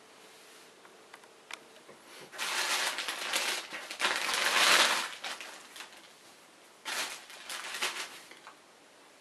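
Plastic wrapping crinkling as a laptop power adapter is pulled out of its bag: a long burst about two to five seconds in, the loudest part, then a shorter burst later on.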